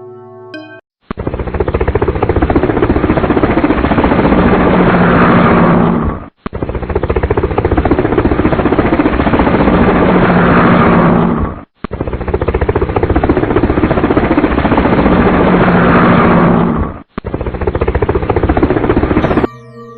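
A loud, rattling engine running with a fast, even pulse. The same few-second sound is repeated about four times in a row, each time stopping abruptly and restarting after a short gap.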